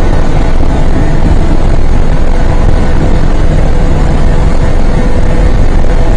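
Loud wind buffeting and road rumble inside a car travelling at highway speed, with a faint steady engine drone under it.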